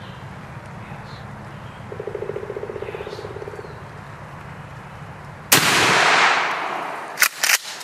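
A single shotgun blast about five and a half seconds in, loud and sudden, dying away over a second or so, as the hunter shoots a wild turkey. Earlier comes a short rattling sound lasting under two seconds, and after the shot a few sharp clicks.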